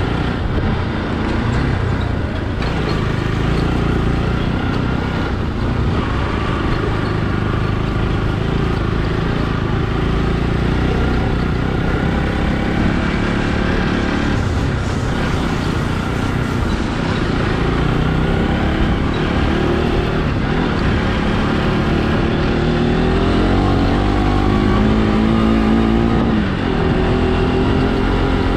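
Motorcycle engine running under way with a steady low rumble. From about two-thirds of the way in its pitch climbs in steps as it accelerates, then drops briefly near the end.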